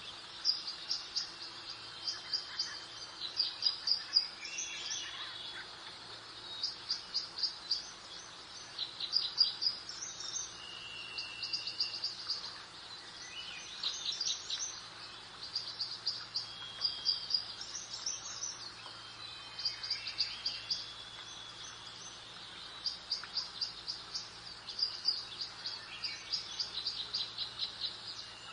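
Songbirds chirping in short bursts of rapid high notes, one phrase after another, over a soft steady background hiss.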